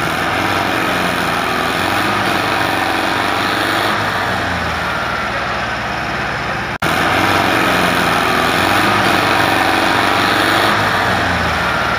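Small electric motor and gearing of a model tractor running steadily under load as it pulls a disc harrow through sand. The sound cuts out for an instant a little past halfway, then resumes slightly louder.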